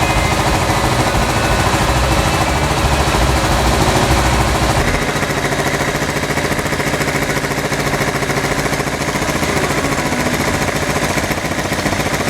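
Kawasaki GPz550's air-cooled inline-four engine running with a fast, even rattle. The sound shifts about five seconds in, losing its deep low end.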